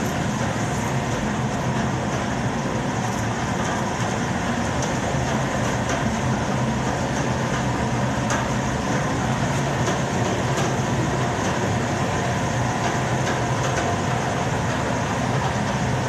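Steady mechanical roar of running boiler-room equipment, with a low hum underneath.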